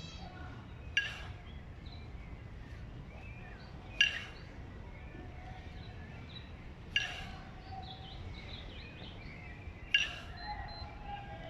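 A pair of 20 kg kettlebells clanking sharply four times at a steady pace of one clank every three seconds, the rhythm of repeated jerk reps. Faint bird chirps sound between the clanks.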